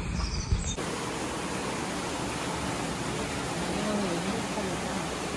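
Steady, even rushing hiss, after a brief stretch of other sound in the first second.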